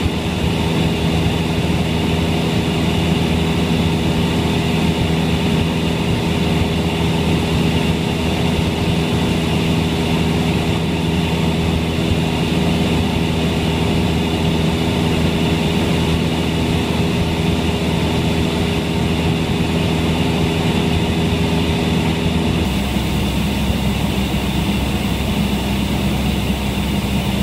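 Cessna 172's four-cylinder Lycoming piston engine and propeller running steadily, heard from inside the cabin. About 23 seconds in the engine note changes abruptly to a lower, different steady tone.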